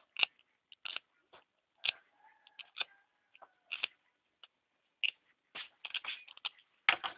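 Irregular small clicks, ticks and scratches from hands working thin copper winding wire on a ferrite toroid coil with a hand tool. A denser run of clicks comes near the end.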